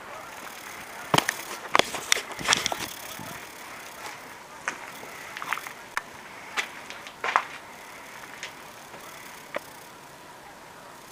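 Irregular sharp knocks and clicks over a steady hiss, a quick cluster in the first three seconds and then single knocks every second or so, from someone walking across the rough floor of a house under construction.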